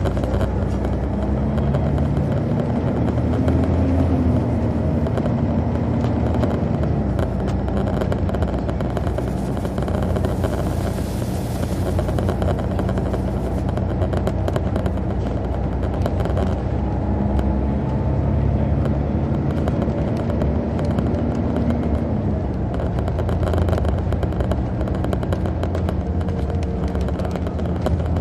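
Detroit Diesel Series 60 inline-six diesel of an MCI D4000 coach, heard from the back of the bus cabin, running under way. Its note rises over a couple of seconds and drops back twice, near the start and again past the middle, fitting the Allison automatic shifting up as the bus pulls away. A hiss joins in around the middle.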